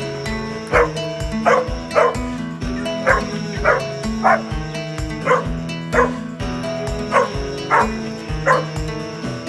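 Background music with a steady beat, over which short high yips repeat about every half second to a second.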